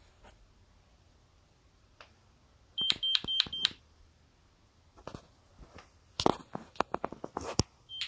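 GE Simon XT alarm panel giving four quick, short high-pitched beeps on one pitch about three seconds in. A run of sharp clicks and knocks follows over the next few seconds.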